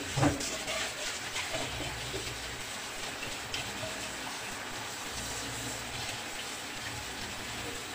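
Kitchen tap running steadily into a sink while raw chicken pieces are rinsed and rubbed by hand under the stream. A couple of light knocks right at the start.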